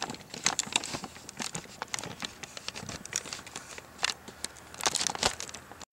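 Irregular crinkling and crackling rustles made of many small clicks, busier about four and five seconds in, cutting off suddenly just before the end.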